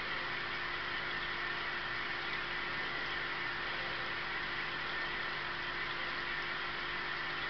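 Steady mechanical hum with an even hiss over it, unchanging throughout: aquarium equipment running.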